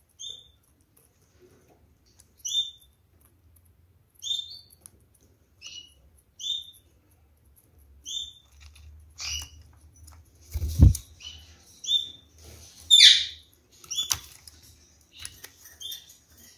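Kakariki parakeets giving short single chirps, one every second or two, coming closer together in the second half. A heavy thump comes partway through, followed by a louder, harsher call, with scattered clicks and rustles of the birds moving about the cage.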